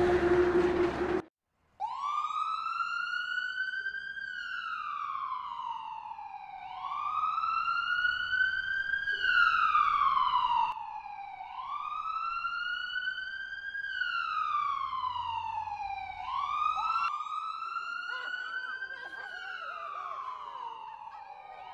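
Emergency vehicle siren wailing, its pitch rising and falling slowly, about one cycle every five seconds. It starts just after a loud vehicle running sound cuts off abruptly about a second in.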